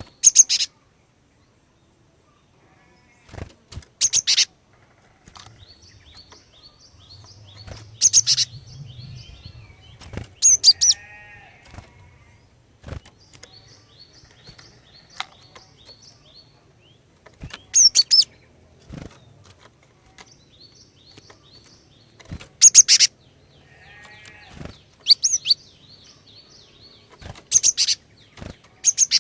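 Female cinereous tit (glatik batu) calling: short, loud, high-pitched call bursts every few seconds. A faint, continuous chatter of quick high notes runs underneath, and twice a harsher buzzy call sounds lower down.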